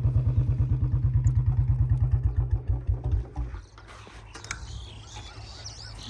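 Royal Enfield Bullet's single-cylinder engine running with an even beat under way, the beats slowing and fading out about three and a half seconds in. After that there is a low, quiet hum with a couple of light clicks.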